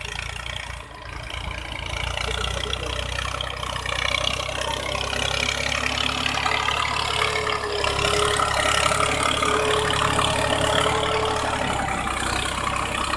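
Massey Ferguson 240 tractor's three-cylinder diesel engine running steadily under load as it drags a rear blade through loose soil. It grows louder as it comes close.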